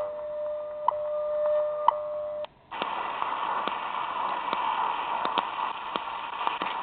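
Sony ICF-SW55 shortwave receiver on 5000 kHz AM, playing a time-signal station: a steady tone with a tick each second. About two and a half seconds in, the audio cuts out briefly as the radio is retuned into the 49 m band around 6000 kHz. There it gives hiss and crackling static.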